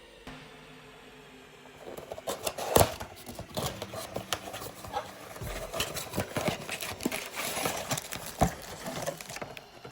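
Cardboard trading-card blaster box being opened and handled by hand: crinkling, rustling and tapping that begins about two seconds in, with a sharp knock about three seconds in and another near the end.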